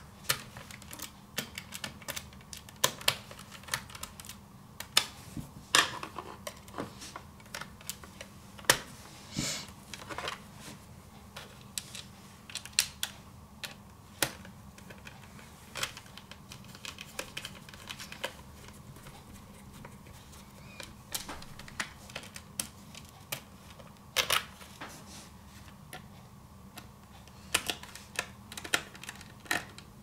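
Small screwdriver turning and tapping on tiny screws in the plastic underside of a Lenovo Z50 laptop: an irregular run of sharp clicks and small knocks over a faint steady hum.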